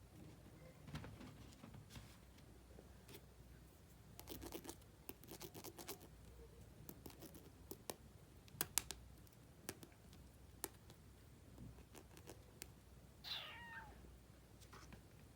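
Small plastic toy kitchen pieces clicking and tapping as they are handled, in scattered bursts. Near the end comes one short wavering call that rises and falls in pitch.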